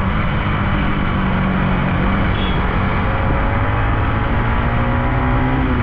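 Motorcycle engine running while riding, with wind rushing over the microphone; the engine note climbs slightly near the end.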